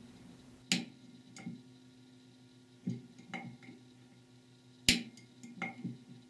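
Several sharp metallic clicks, one every second or two, the loudest near the end, as a steel pick pushes the spring-loaded accumulator valves in a Ford E4OD/4R100 aluminium valve body and they snap back: the sign that the valves move freely and are not stuck.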